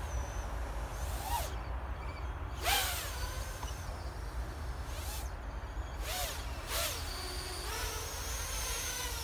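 Emax BabyHawk R Pro 4-inch FPV racing quadcopter's brushless motors and propellers buzzing as it makes several fast passes, each a quick rise and fall in pitch. In the last second or two it settles into a steadier whine as it hovers low and close.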